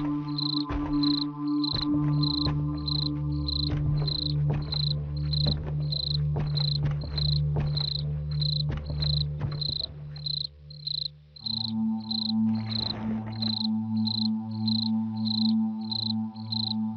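Horror background soundtrack: steady low droning synth tones that shift to a new pitch about eleven seconds in, under a high cricket-like chirp repeating about twice a second, with scattered faint clicks.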